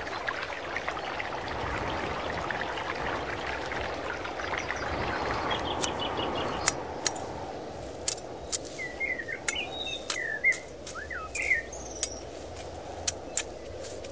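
A steady rushing noise, then, after a cut, a long-handled tool striking into weeds and soil in about a dozen sharp chops as grass is cleared. Small birds chirp between the strikes.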